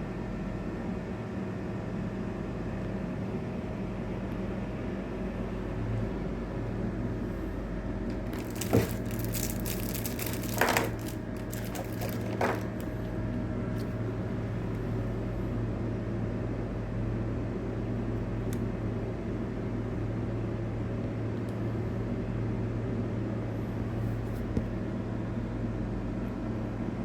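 Steady low mechanical hum, with a few sharp clicks and knocks about a third of the way in.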